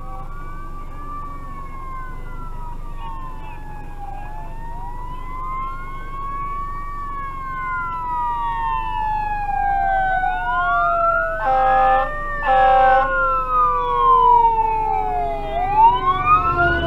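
Fire engine siren wailing in slow rising and falling sweeps, growing louder as the engine approaches, with two short horn blasts about twelve seconds in. Engine rumble swells near the end as the truck draws close.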